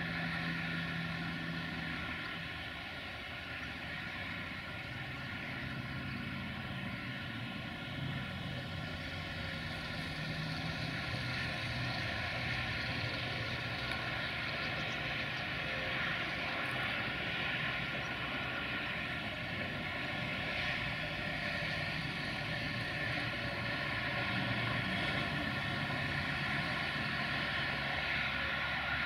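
Class 060-DA (LDE 2100) diesel-electric locomotive, Sulzer-engined, running with a steady engine drone as it hauls a freight train slowly forward.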